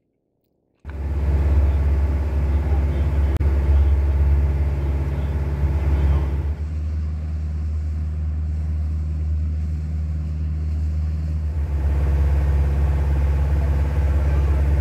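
Passenger ferry's engine running with a steady low drone, heard from aboard the boat. It cuts in abruptly about a second in, and its tone shifts for a few seconds in the middle before the drone returns.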